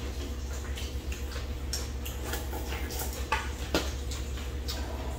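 Chopsticks clicking against bowls while eating, a few scattered light clicks over a steady low hum.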